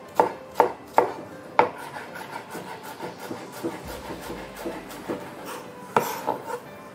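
Chef's knife dicing a shallot on a plastic cutting board: several sharp knocks of the blade on the board in the first second and a half, then lighter, quicker tapping as it cuts fine, with two more knocks about six seconds in.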